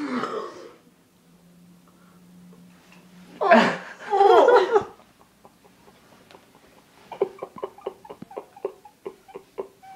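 A woman's voice: a short burst, then a low steady closed-mouth hum, then a loud burst of laughter about three and a half seconds in. In the last few seconds comes a quick run of small knocks and clicks.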